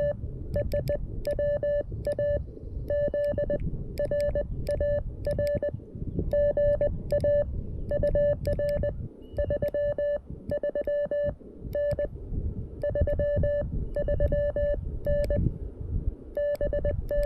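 Morse code from a CFT-1 QRP CW transceiver: a single steady tone keyed on and off in dots and dashes, in groups with short gaps. Sharp clicks from the 3D-printed paddle key line up with the tones, over a low rumble.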